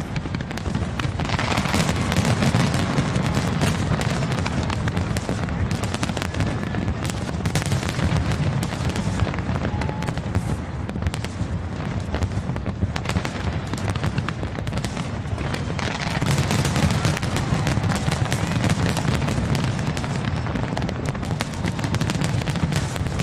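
Fireworks display: a dense, continuous barrage of booms and crackling bursts, swelling a couple of seconds in and again later on.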